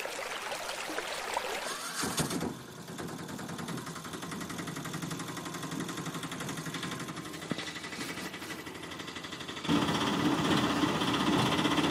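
A small engine running with a fast, even chatter. It gets louder and steadier, with a low hum, near the end.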